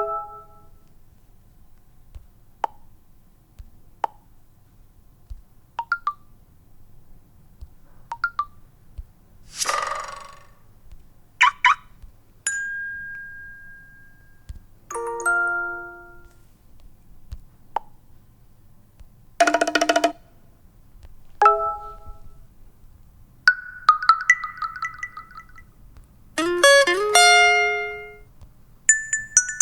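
A series of short mobile messenger notification tones played one after another with pauses between: single blips and dings alternating with brief multi-note chimes, over a faint low hum.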